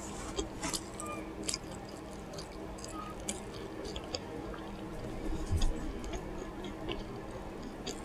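A person with dentures chewing a meat burrito with the mouth closed: soft wet smacks and small clicks at an uneven pace, over a faint steady hum.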